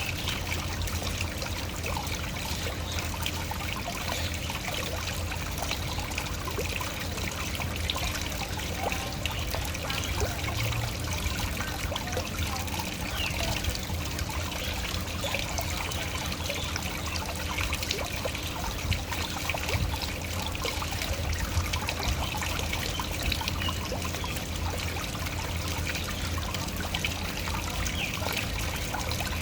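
Waterfall: water falling and splashing in a steady, unbroken rush, with many small splashes and trickles throughout.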